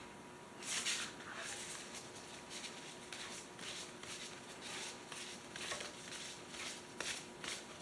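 Faint scattered clicks and light scraping of hand tools working on the metal screws of a pneumatic cylinder's Kine-Check, over a low steady hiss.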